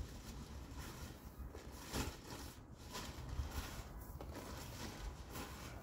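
Wind buffeting the microphone with a low rumble, over a soft rustle and hiss of bagged soil mix being poured onto a heap of soil.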